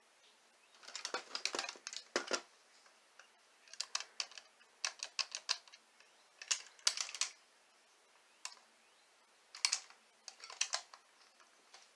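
Hard plastic toy train being handled, its plastic parts clicking and clacking against each other in short clusters with brief pauses between.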